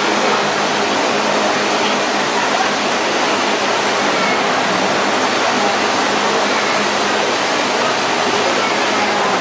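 Build-a-Bear bath-station air blower running steadily, air rushing out of its showerhead-shaped nozzle.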